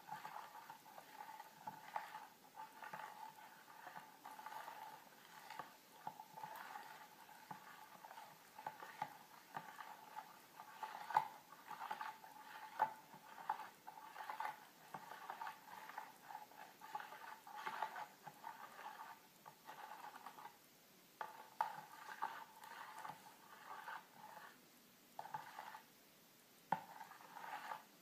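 Metal spoon stirring raspberry jelly mixture in a bowl, clinking and scraping against the bowl's sides in an irregular rhythm, with a few short pauses in the last third.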